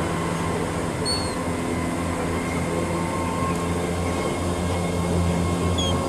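Steady low mechanical rumble and hum of city machinery or traffic, with a few faint, short high bird chirps about a second in and near the end.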